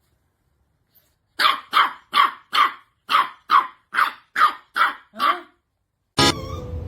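A dog barking ten times in a quick, even series, about two and a half barks a second. Music starts abruptly near the end.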